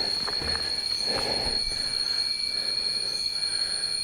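Steady, high-pitched drone of cicadas in tropical jungle, one unbroken shrill tone, with soft irregular scuffs about once a second.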